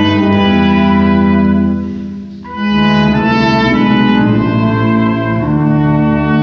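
Brass ensemble of French horns, trumpet and tuba playing sustained chords of a Romanian Christmas carol (colind). The chord breaks off briefly about two seconds in before the next phrase starts.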